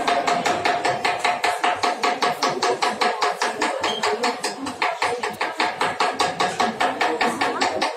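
Rapid, even tapping against a chocolate mould, about seven knocks a second, to knock air bubbles out of the freshly poured chocolate.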